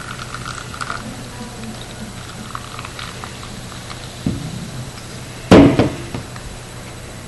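Cola poured from an aluminium can into a plastic cup, with a faint fizz. About four seconds in there is a low thump, then a loud sharp knock on the wooden table as the can is set down.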